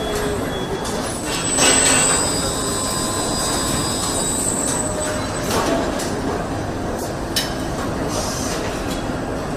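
Car assembly-line machinery running with a steady mechanical hiss and whir. A brief high metallic squeal comes about two seconds in, and a few sharp clicks come later.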